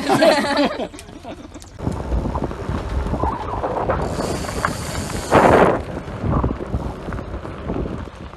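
Wind buffeting the microphone, a rough rumbling noise that starts about two seconds in and swells and drops unevenly, after a brief burst of voices at the start.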